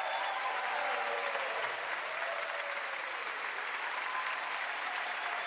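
Live concert audience applauding steadily.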